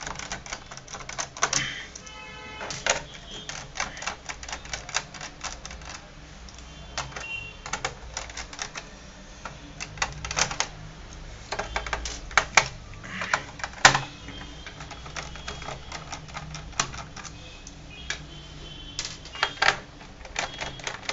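Small screwdriver backing screws out of a Dell Inspiron 15R laptop's plastic bottom case: a long run of irregular clicks and ticks, with a few sharper clicks about halfway through.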